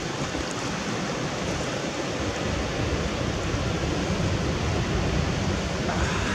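Steady rushing noise with an uneven low rumble: wind on the microphone.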